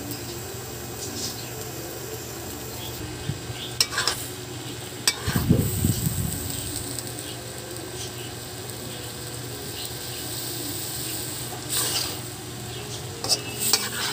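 Cabbage, carrot and snow peas sizzling as they are stir-fried in a hot wok, a spatula scraping and knocking against the pan now and then. A heavier thump about five seconds in is the loudest moment.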